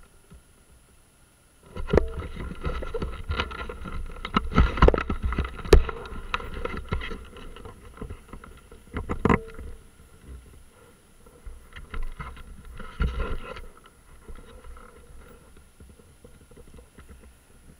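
Irregular knocks, clatter and rumbling on a small motorcycle's mounted camera, with a faint steady hum underneath. The noise starts suddenly about two seconds in and is loudest for the next several seconds, with sharp knocks. A shorter bumpy spell comes later, then it settles to a quieter hum.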